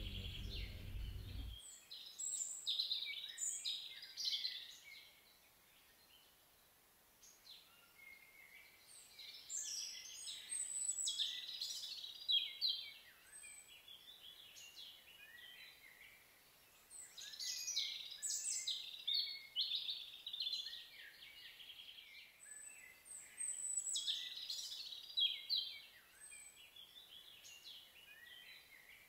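Songbirds singing in bursts of quick high phrases a few seconds long, recurring about every six or seven seconds, with scattered chirps between.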